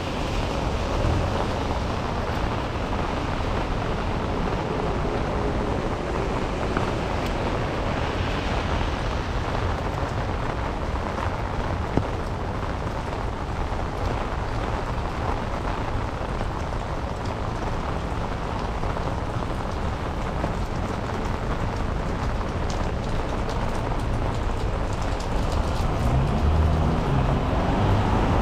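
Steady rain falling, an even continuous hiss, with one sharp tick near the middle.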